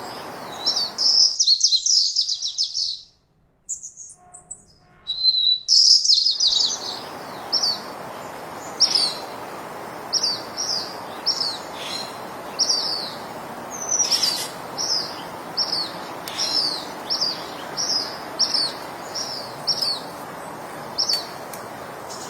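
Small birds chirping: short, high, downward-sliding calls repeated about once or twice a second, with faster rapid runs of calls near the start and around six seconds in, over a steady background hiss that drops away for a few seconds early on.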